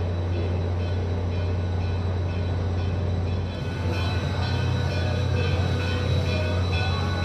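Steam locomotive No. 1702, a 2-8-0, moving slowly along the track over a steady low hum. About halfway through, higher metallic sounds come in as it draws nearer.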